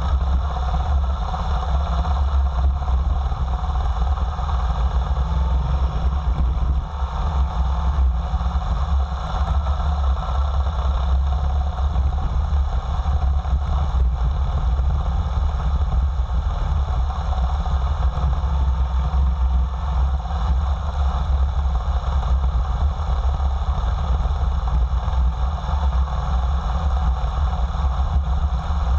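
Motorcycle engine running steadily as the bike rides along a dirt forest trail.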